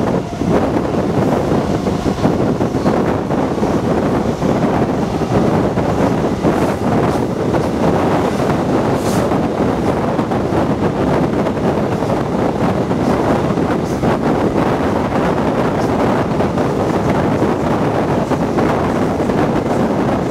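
Loco-hauled passenger train with Class 67 diesel locomotive 67018 running at speed, heard from an open window beside the locomotive: a steady roar of wheels on the rails, with wind buffeting the microphone.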